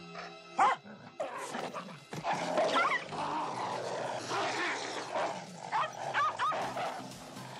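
Dogs barking and yelping: a sharp bark about half a second in, more barking with rough growly noise in between, and a quick run of barks near the end.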